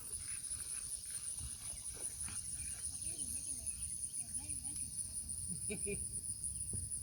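Steady high-pitched chirring of crickets in an insect chorus, unbroken throughout, over a low uneven rumble.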